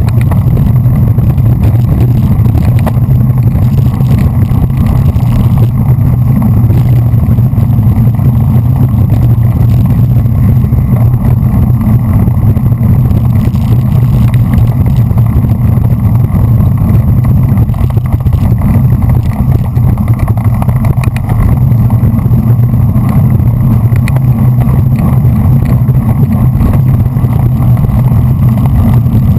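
Steady, loud rumble of wind buffeting and road vibration on a GoPro mounted on a road bicycle riding at race speed, with no break or change.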